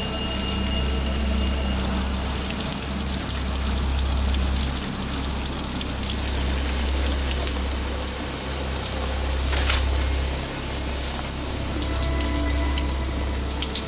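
Steady heavy rain falling, with a low steady rumble underneath and a single sharp crack about ten seconds in.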